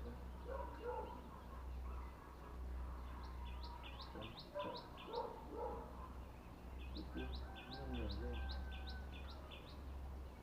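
A bird calling in two runs of quick, repeated rising chirps, about three to four a second: a short run around the middle and a longer one a little later, over a steady low hum.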